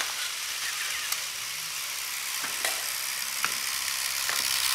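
Several battery-powered toy trains running on plastic track: a steady hissing whir with a few sharp clicks scattered through it.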